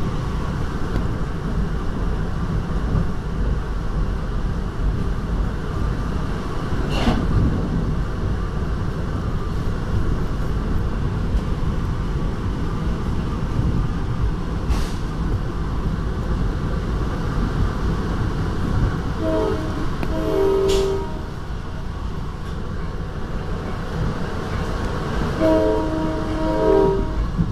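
Steady rumble of an NJ Transit Comet IV commuter train running on the rails, heard from inside the passenger car. About two-thirds of the way through, and again near the end, the cab car's Nathan K5LA five-chime horn sounds, each blast about a second and a half long.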